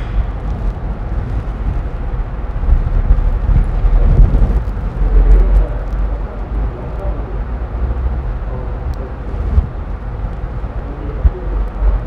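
Steady low rumble of background noise, swelling briefly around the middle, with a few faint clicks as plastic cable-harness connectors are handled and plugged together.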